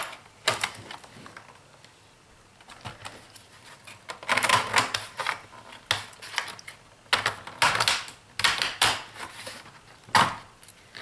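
Plastic clips of an ASUS F551C laptop's case snapping loose as a plastic pry pick is worked along the seam: clusters of sharp clicks and snaps, densest from about four to nine seconds in.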